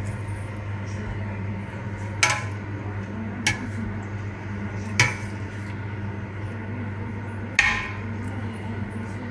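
A metal utensil stirring beef stew in a pot after the red wine has gone in, knocking against the pot four times with short ringing clinks, over a steady low hum.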